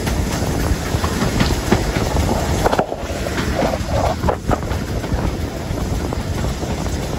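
Wind buffeting the microphone over the steady rumble of a moving steam-hauled train, BR Standard Class 5 Camelot, with scattered clicks of the wheels running over the track.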